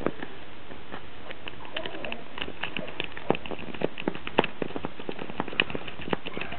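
Irregular small clicks and ticks of a half-hook lock pick working the pins of a Master Lock padlock held under a tension wrench, a few clicks a second, some sharper than others.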